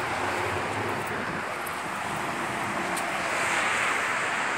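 Steady road traffic noise from cars and trucks passing on the road below, a continuous hiss of tyres and engines that swells slightly about three seconds in.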